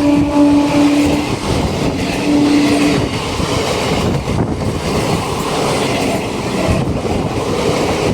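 Train horn sounding one steady note that cuts off about a second in, then a short second blast about two seconds in. This is followed by the rush and clatter of a passing train's wheels on the rails.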